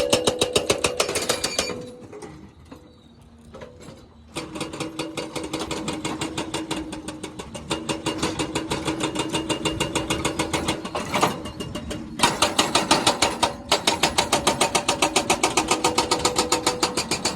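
Jackhammer pounding in rapid, even blows, about ten a second, with an engine running underneath. The hammering stops for about two seconds shortly after the start, then picks up again and runs on with one more brief break.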